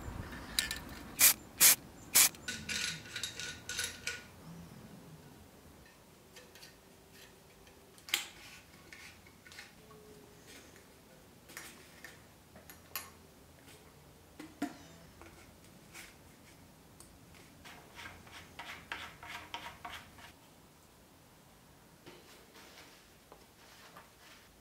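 Sink bottle trap and drain pipe fittings being handled and screwed together: a few sharp clicks at the start, then faint scattered clicks and rubbing, with a short run of quick rubbing clicks later on.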